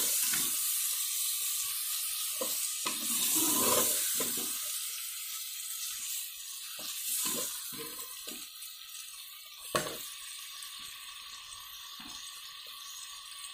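Mutton pieces sizzling as they fry in oil in an aluminium pressure cooker, stirred with a steel ladle that scrapes and clinks against the pot. The sizzle grows quieter through the second half, with one sharper clink about ten seconds in.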